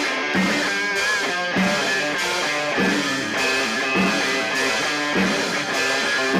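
Instrumental opening of a rock song, led by guitar.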